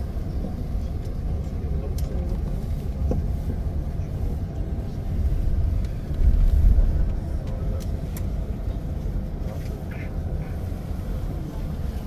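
Steady low rumble of a moving tour bus, engine and road noise heard from inside the passenger cabin, swelling briefly about six seconds in.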